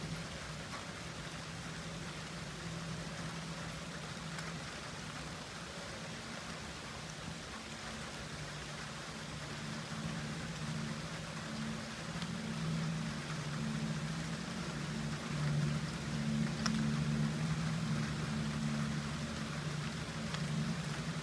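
Steady rain hiss with a low, steady engine-like hum that grows a little louder toward the end.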